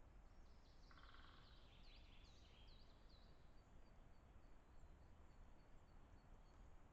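Faint songbird calls over low background hiss: a short run of rapid buzzy notes about a second in, then a string of quick, clear notes that dip and rise in pitch, about two or three a second, for a couple of seconds.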